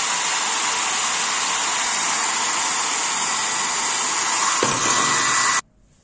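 Nova NHP-8100/05 1200 W foldable hair dryer running with a steady rush of blowing air and a faint whine, then switched off, cutting out abruptly near the end.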